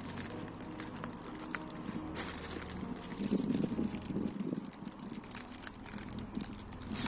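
Plastic moisture-barrier sheet crinkling and crackling in short bursts as it is peeled back by hand from the inside of a car door, pulling free of its sticky black butyl sealant.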